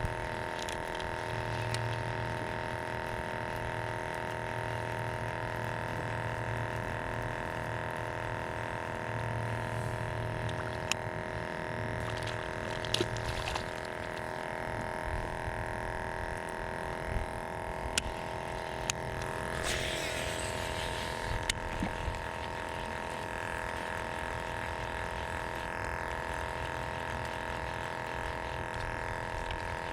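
Small electric motor on a fishing boat humming steadily in several fixed tones over a low hum. A few light clicks come over it, and there is a short hiss about two-thirds of the way through.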